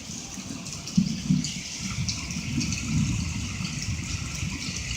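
Heavy rain pouring down with small pea-sized hail mixed in: a steady rushing wash scattered with many small ticks.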